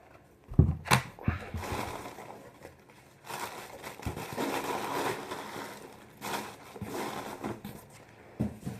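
Packaging rustling and crinkling as it is handled and opened, with a few light knocks near the start and again toward the end.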